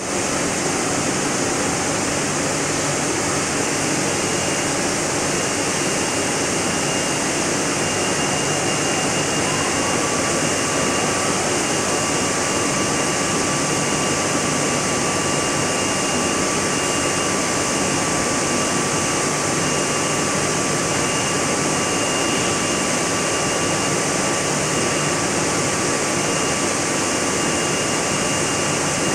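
Steady machine noise of a polyethylene pipe extrusion line running, an even hissing rush, with a thin high whine and a second, lower whine that slides up about ten seconds in and then holds steady.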